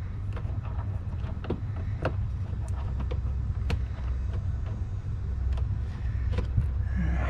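Steady low rumble with scattered light clicks and knocks of parts and tools being handled under the car while the undertray is refitted.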